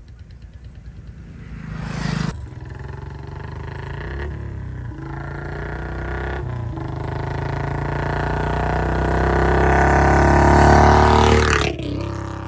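Royal Enfield Bullet 350 single-cylinder engine running through a long-bottle silencer with a C-bend pipe. It idles at first, with a quick throttle blip about two seconds in. Then comes a long pull with the engine note rising steadily and growing louder, until the throttle is shut suddenly near the end.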